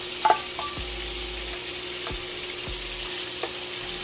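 Shrimp frying in hot oil in a pan, a steady sizzle, with a sharp clink of a metal spoon against a bowl about a third of a second in and a few lighter knocks after.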